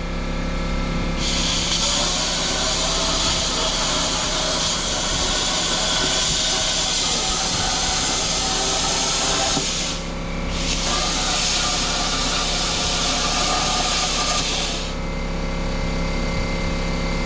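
Plasma cutter cutting steel: a loud, even hiss that starts about a second in, breaks off briefly around ten seconds, resumes, and stops about fifteen seconds in. A steady machine hum runs underneath.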